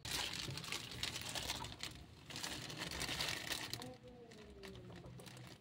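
A plastic bag worn over a hand crinkling and rustling as the hand handles a cat, louder for the first four seconds or so, then quieter. A short, faint falling call is heard near the end.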